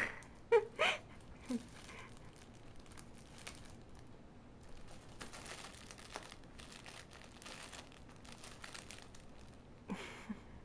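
Crinkling and rustling as a cat plays with something crinkly, in scattered faint crackles, with a few short, sharper sounds in the first two seconds and again near the end.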